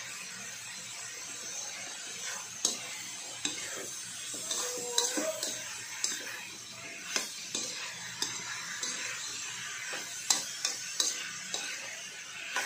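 Metal spatula scraping and knocking against a metal wok as vegetables and pork are stir-fried, over a steady sizzle of frying. Sharp clinks of the spatula on the pan come at irregular moments, several of them a few seconds apart.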